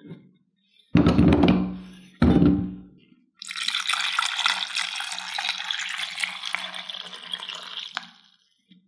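Two heavy clunks with a short ring as potato pieces are tipped into a pot, then water pouring in a steady stream onto the potatoes for about four and a half seconds, stopping abruptly near the end.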